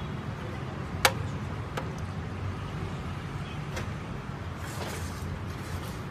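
Steady low rumble of street traffic, with one sharp click about a second in and a few fainter clicks from wires and small plastic connectors being handled during motorcycle wiring work.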